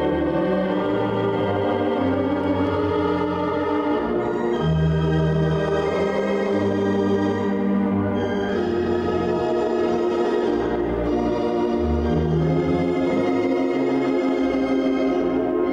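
Wurlitzer theatre organ playing dance music: held chords over a low bass line that moves to a new note every second or two.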